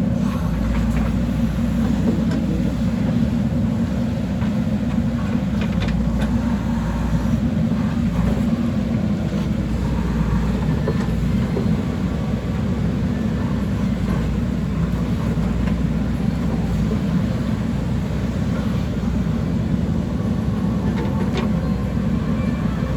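JCB backhoe loader's diesel engine running steadily at working revs, with a few faint clicks.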